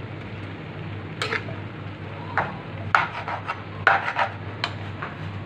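Metal fork scraping and clinking against a frying pan while stirring and tossing a stir-fry of petchay and fried tofu cubes: irregular strokes, bunched most closely in the middle and latter part, over a steady low hum.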